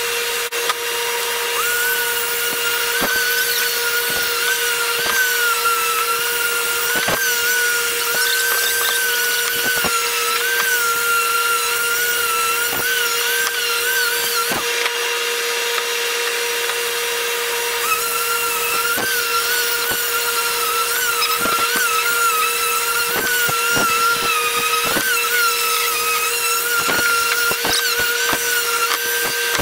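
Electric random orbital sander running on old barn-beam wood, its whine wavering in pitch as it is pressed and moved over the block, with a steady motor hum underneath. The wavering whine drops out for a few seconds about halfway through, while wooden blocks knock as they are handled.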